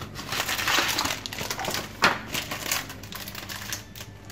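Crinkling and crackling of a paper seasoning packet and thin plastic gloves being handled. A dense stretch of rustling comes in the first second, with a sharp louder crackle about two seconds in, then lighter crackles.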